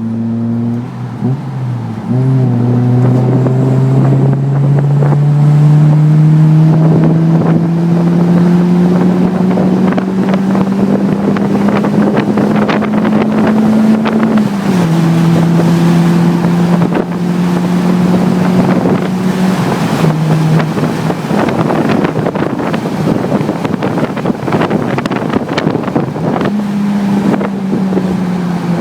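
Toyota 4A-GE 1.6-litre twin-cam four-cylinder engine running well above idle, its note climbing slowly and steadily for about twelve seconds, then falling abruptly about halfway through and again later, and rising once more near the end, with a rushing of wind throughout.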